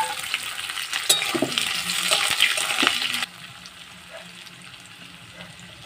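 Sliced onions sizzling loudly in hot oil in an aluminium kadai, with a few sharp clinks. About three seconds in, the sizzle drops abruptly to a much quieter frying hiss.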